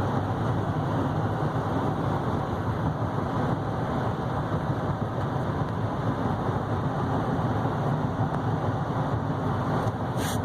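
Steady driving noise of a 2015 GMC Sierra 3500HD dually with the 6.6-litre Duramax diesel cruising down the road, heard from inside the cab: tyre rumble and engine drone at an even level. A brief click comes near the end.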